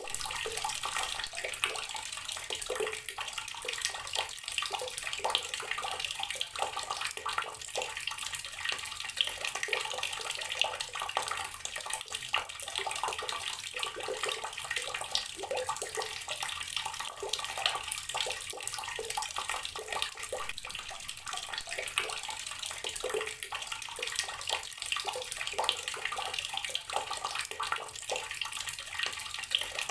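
Water running steadily from a tap and splashing into a basin or tub, a constant spattering gush.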